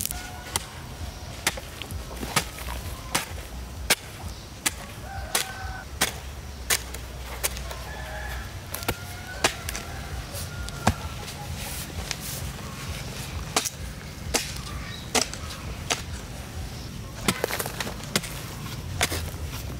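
A run of sharp knocks, about one every three quarters of a second, with chickens clucking a few times in the middle.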